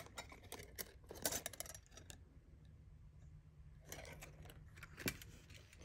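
Faint small clicks and clinks of hoop earrings being handled, a cluster in the first two seconds, then a few more and one sharper click near the end.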